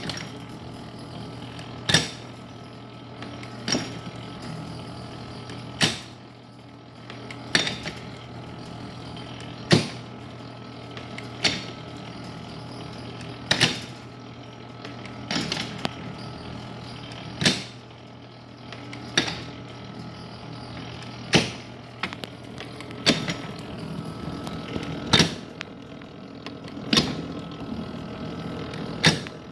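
Small vintage metal planer working through its strokes: a sharp metallic clack about every two seconds as each stroke reverses, over a steady low hum.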